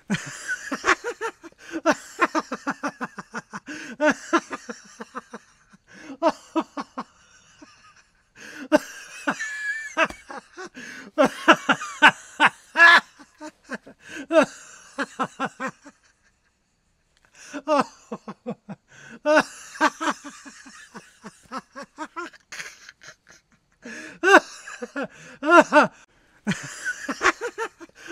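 A man laughing hard in repeated bouts of rapid, pulsing 'ha-ha' bursts with wheezy in-breaths, separated by short pauses.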